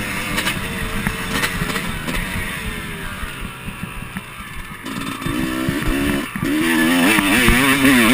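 Motocross bike engine revving up and down while being ridden over a dirt track. It eases off for a couple of seconds in the middle, then opens up again and runs louder near the end with fast rises and falls in pitch.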